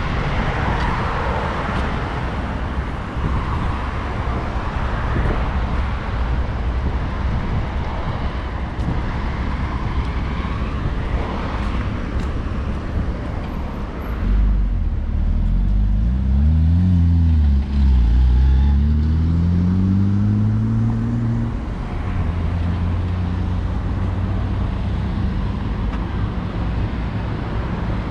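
Traffic on a busy city avenue: a steady wash of passing cars. About halfway through, a nearby vehicle's engine pulls away with its pitch rising, dropping briefly at a gear change, then rising again before settling back into the traffic.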